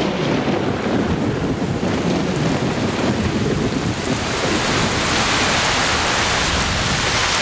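Heavy tropical rain pouring on rainforest foliage. A low rumble of thunder runs under it through about the first half, then gives way to a steady, brighter hiss of rain.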